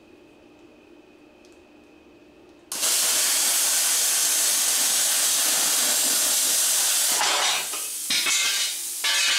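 A handheld abrasive cutoff wheel cutting through the steel of a car bumper reinforcement. It starts about three seconds in, runs loud and steady, then stops and restarts in short spurts near the end.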